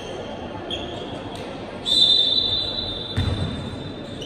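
Basketball shoes squeaking in short, high chirps on a hardwood court, and a basketball bouncing once a little after three seconds in. The loudest sound is a high, steady tone that starts about two seconds in and fades over about two seconds.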